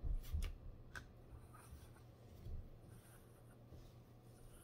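Hands rubbing and working through a dog's fur: faint scratchy rustling, with a few light clicks and knocks in the first second.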